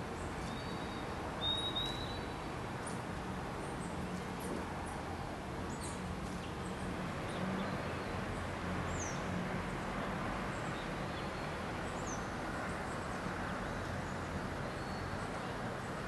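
Scattered short, high bird chirps, with a brief brighter whistle about a second and a half in, over a steady low background hum and hiss.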